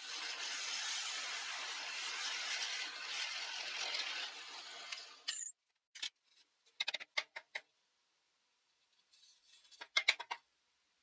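Drill press with a large spiral wood bit boring a hole through a wooden block: a steady rough cutting noise for about five seconds that stops abruptly. Then a few light clicks and knocks, twice in short clusters, as the block is handled.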